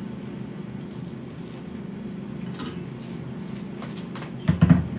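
A steady low hum, then a quick burst of loud thumps and knocks near the end.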